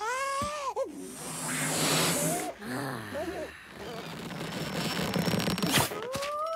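Cartoon sound effects: a brief squealing cartoon voice, then rushing air hiss with a few short squeaks. Near the end a sharp snap is followed by a steadily rising whistling tone as the rubber glove balloon goes flat and the lizard puffs up.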